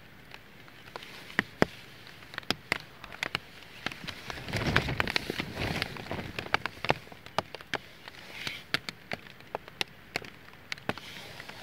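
Small teepee campfire of split wood crackling, with irregular sharp snaps and pops. A louder rush of noise swells briefly near the middle.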